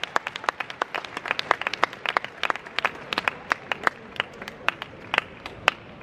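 Spectators clapping after a point is won, many separate sharp claps that thin out toward the end.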